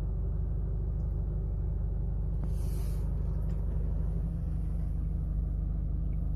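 A steady low rumble, with a brief hiss about two and a half seconds in.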